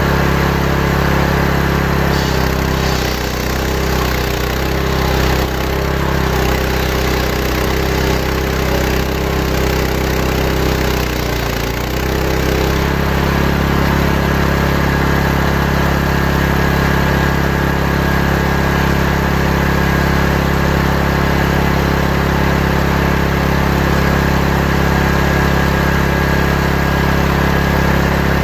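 Belt-driven table saw running continuously while its large circular blade rips a santol log into boards. From about two seconds in to about thirteen seconds the drive's pitch wavers and sags under the load of the cut, then it runs steady again.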